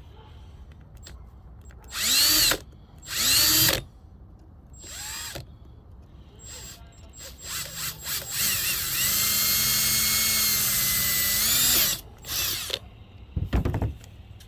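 Power drill with a 5/16-inch bit drilling a hole in a fog light mounting bracket. It starts with two short bursts that whine up in pitch, then a brief one, then a steady run of about four seconds before a last short burst.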